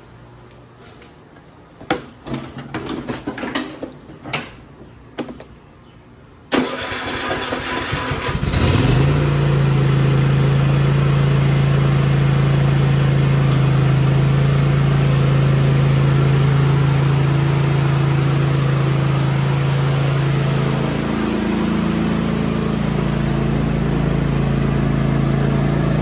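A few clunks and knocks, then a Cub Cadet riding mower's engine is cranked by its electric starter for about two seconds, catches, and runs steadily, wavering briefly in pitch later on.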